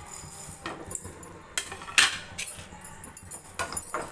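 Coriander seeds tipped from a plate into a small dry aluminium pan, then a metal spoon clinking and scraping against the pan as the seeds are stirred to dry-roast, with a quick run of clinks near the end.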